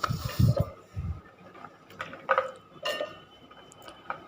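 Ginger and garlic dropped into a mixer-grinder jar with a few dull thumps, then a kitchen utensil clinking twice against the jar or a dish.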